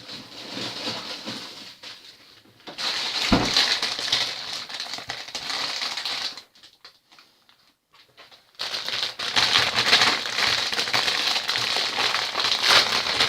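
Crinkling, rustling noise in three long stretches, with a single dull knock about three seconds in and a near-quiet gap of about two seconds between the second and third stretches.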